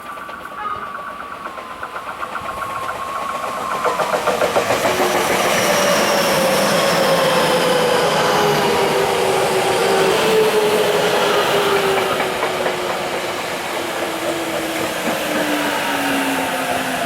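Tokyo Metro 08 series electric train pulling in and braking. The traction motors whine in several tones that fall steadily in pitch, and for the first few seconds the wheels clack quickly over rail joints. The arrival sound is unusual, which the uploader finds a little strange.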